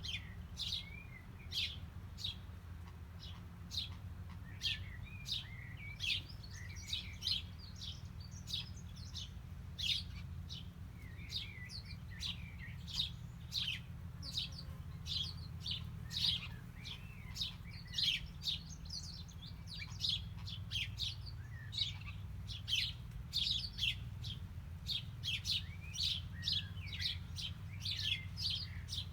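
Small birds chirping: a busy stream of short, high chirps, several a second, over a steady low rumble.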